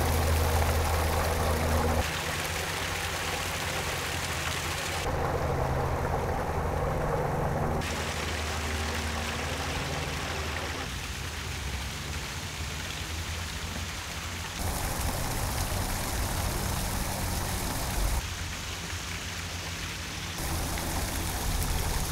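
A small waterfall spilling over stone walls into a creek makes a steady rushing, splashing water noise. A low airplane rumble sits under it for the first couple of seconds. The sound is heard alternately through a parabolic dish microphone and a shotgun microphone, so the tone and loudness of the water change abruptly every few seconds; the parabolic mic brings the waterfall up louder, with less of the surrounding ambience.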